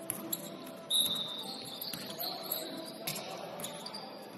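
Basketball shoes squeaking on a gym floor, with short high squeals about a second in and again near the end, among a few sharp thuds of the ball bouncing.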